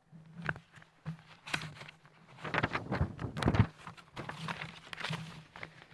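Sheets of paper being rustled and leafed through close to a microphone: a string of short irregular crackles, densest about halfway through, over a faint steady low hum.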